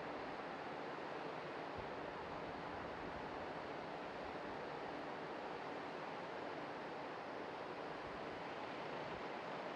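Steady outdoor background noise, an even rush with nothing standing out from it.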